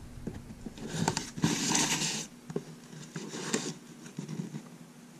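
Cardboard shipping box handled and turned around on a wooden workbench: a scraping slide about a second and a half in, with light taps and scratches of a knife and fingers on the cardboard and tape.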